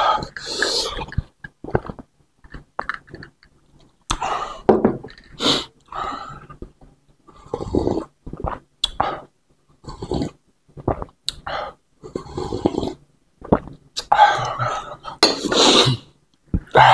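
Close-miked eating and drinking: gulps from a glass at the start, then slurping and swallowing bakso broth drunk straight from the bowl, with chewing in between. Short, irregular mouth sounds with brief pauses.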